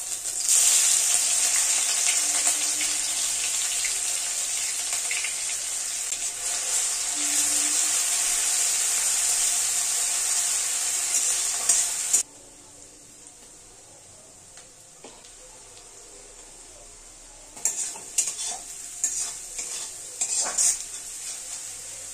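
Onions dropped into hot oil in an aluminium kadai, sizzling loudly and evenly, until the sizzle suddenly drops to a quieter fry about twelve seconds in. Near the end a spatula scrapes and stirs the frying onions against the pan in short, irregular strokes.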